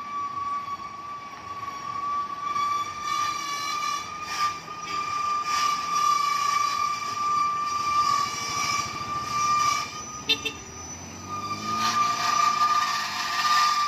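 A heavy vehicle's horn held in one long steady blast. It breaks off briefly about ten seconds in, then sounds again as louder passing-traffic noise rises near the end.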